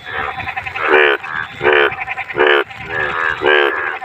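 Several frogs croaking in chorus in water: short, buzzy, pulsed croaks, about one every second or less, overlapping one another.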